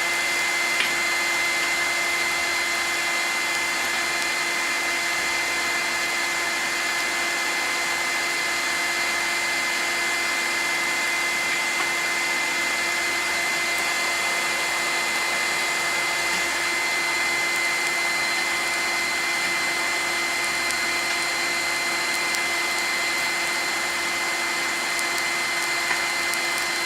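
Electric air blower running steadily to force air into a forge fire, a constant whooshing with a steady high whine.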